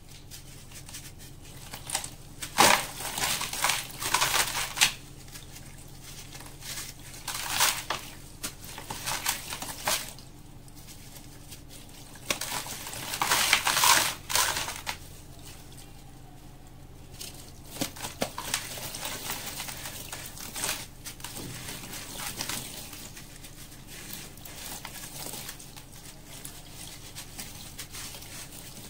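A block of sand-cement crushed and crumbled by hand into a bucket of water: gritty crunching and crumbling in several bursts of a few seconds each, with softer crumbling toward the end.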